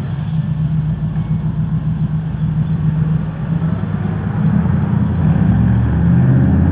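ProCharger-supercharged LS V8 running at a choppy, pulsing idle. It grows louder about five seconds in.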